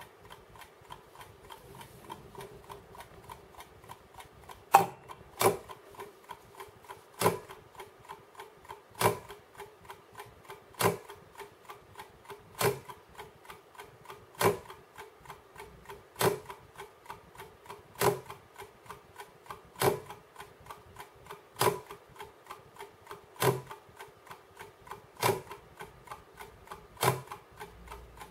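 1954 Junghans Trivox mechanical alarm clock ticking quickly and steadily, with a louder, ringing click about every two seconds from about five seconds in.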